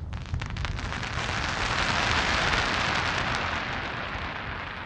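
Aerial fireworks: a sharp pop, then a dense crackling hiss that swells for about two and a half seconds and fades away.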